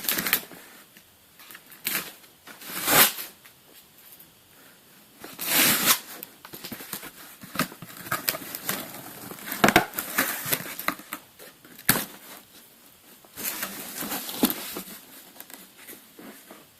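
A cardboard shipping box being opened by hand: irregular tearing, crumpling and rustling of cardboard and packaging, with a few sharp knocks.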